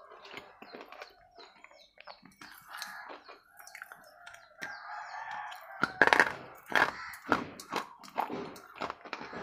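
Crunching and chewing of a wet red bar right at a lapel microphone, with a run of sharp crunches starting about six seconds in. A bird calls in the background during the first half.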